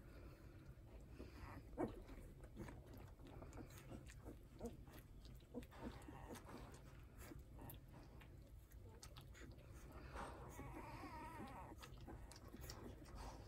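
Newborn Hovawart puppies suckling at their mother, a faint run of wet smacking and clicking sounds. A puppy whimpers with a wavering high cry for about two seconds, about ten seconds in.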